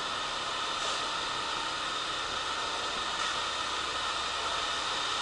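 Steady mechanical hum over an even hiss, unchanging throughout.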